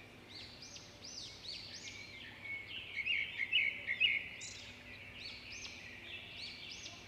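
Small birds chirping, a steady run of short, high calls that rise and fall, denser and a little louder around the middle.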